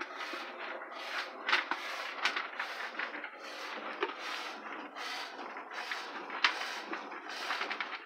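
Goat being hand-milked: streams of milk squirting into a stainless steel pail already partly full of milk, in a quick, uneven rhythm of about two to three squirts a second.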